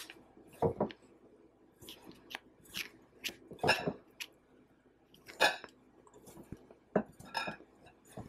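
Hands scooping and folding a chicken piece through seasoned flour in a glass bowl, heard as short irregular bursts about once a second.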